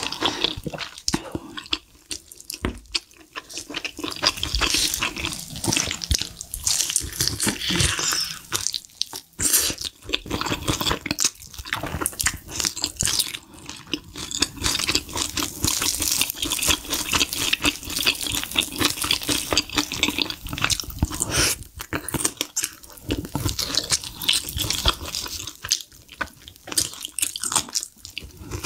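Close-miked chewing of crispy sauce-coated fried chicken and creamy noodles: dense crunching of the fried coating mixed with wet, sticky mouth sounds.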